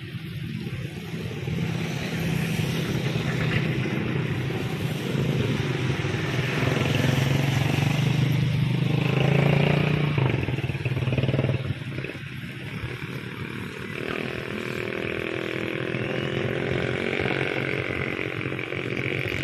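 Arriving airliner's engines running: a loud rush of engine noise that builds to a peak about ten seconds in, then drops off sharply. A steadier engine whine with a slight rise in pitch follows.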